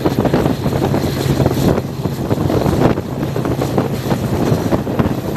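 Train running at speed heard from an open carriage window: wind buffets the microphone over the rumble of the coaches on the track, with a steady low hum underneath.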